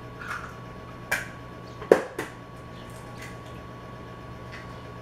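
Eggs being cracked into a plastic mixing bowl: a few sharp taps and clicks of shell and bowl, the loudest about two seconds in.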